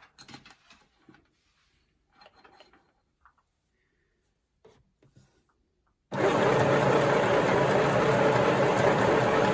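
Faint clicks and rustles of handling, then about six seconds in a small Midi sewing machine starts up and runs steadily, driven from its foot pedal on mains power.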